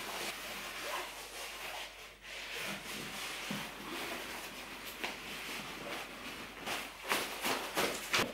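Synthetic sleeping-bag fabric rustling and swishing as a person works their legs into a down-style mummy bag, with a few sharper crinkles near the end.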